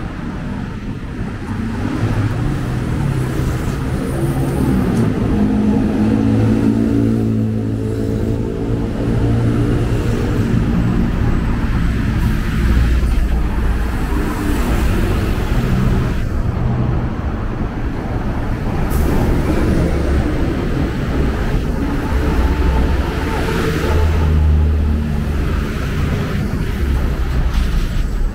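Street traffic: motor vehicles running and passing close by in a steady loud rumble, with one engine's note standing out for several seconds in the first half.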